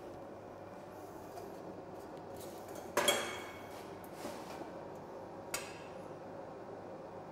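A steel angle-iron leg knocked down against a steel frame on a workbench: one sharp, ringing metal clank about three seconds in, followed by a lighter knock and a short clink, over a steady low hiss.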